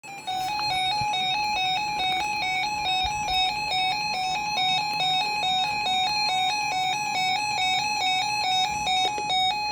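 Emergency Alert System alert tone: a loud electronic tone switching rapidly back and forth between two pitches, without a break.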